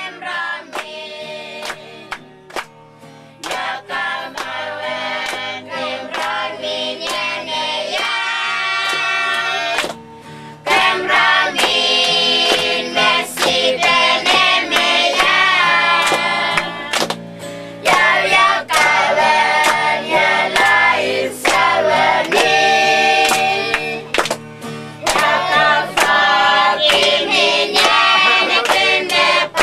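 A family group of women, men and children singing together over a steady rhythmic beat. The singing swells much louder about ten seconds in.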